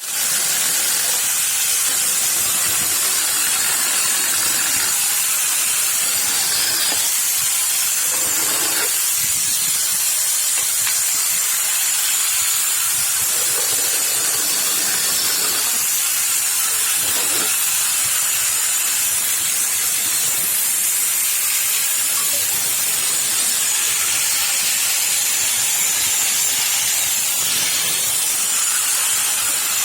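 Angle grinder fitted with a chainsaw attachment, running steadily with a high hiss.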